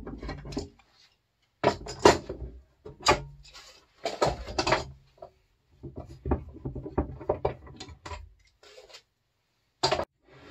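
Steel bar clamps being loosened and lifted off a glued-up panel, their bars clanking against each other and the wooden workbench in a series of irregular knocks and rattles.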